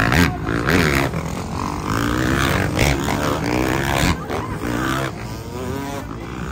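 Motocross dirt bike engines revving hard, their pitch rising and falling as riders take off from a ramp, with the sound changing abruptly several times.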